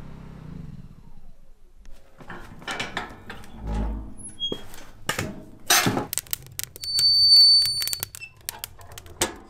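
Objects being handled at close range: a run of sharp clicks and knocks that grows busier past the middle, with a high, steady squeak lasting about a second.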